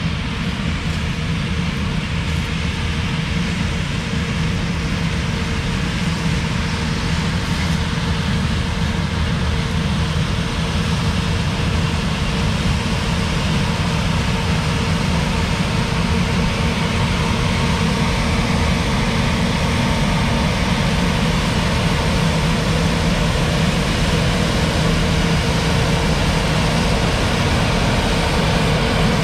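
John Deere S670 combine running steadily as it harvests dry black beans, a continuous low engine and threshing hum with a steady tone in it, growing slightly louder as the machine comes closer.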